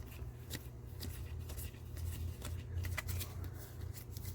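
Trading cards being flipped through by hand: faint, scattered soft slides and light clicks, over a steady low hum.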